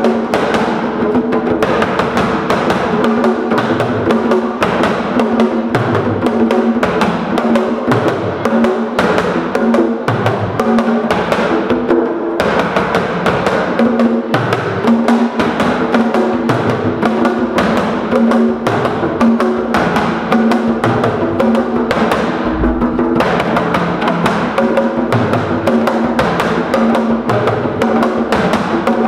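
Fast hand-drumming on skin-headed drums, a dense run of strokes with a deeper stroke recurring about every second or so, played as music for a traditional dance.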